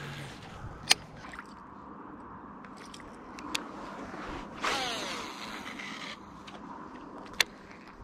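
Baitcasting reel being cast: the spool whirs as line pays out midway, its pitch falling over about a second and a half before it stops, with three sharp clicks of the rod and reel being handled.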